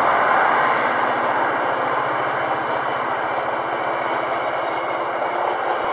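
KiwiRail Northern Explorer passenger carriages rolling past close by: a steady rumble of wheels on the rails that eases off slightly.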